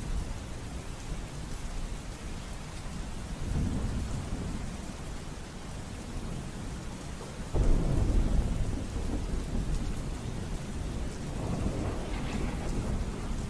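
Steady heavy rain with rolling thunder: a low rumble swells about three and a half seconds in, a louder peal breaks suddenly about halfway through and rumbles on, and another roll builds near the end.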